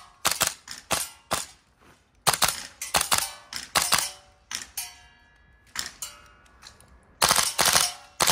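Gas blowback airsoft rifle, a Marksman (VFC) K1A, firing a dozen or more sharp shots, each with the clack of the bolt cycling; mostly single shots and quick pairs with short pauses, and a faster string of shots near the end.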